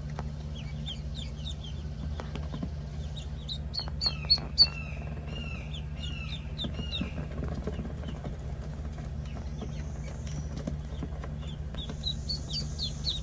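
Penciled Call ducklings peeping: a steady stream of short high peeps from several birds, louder about four seconds in, with a run of lower, downward-curving calls around five to seven seconds.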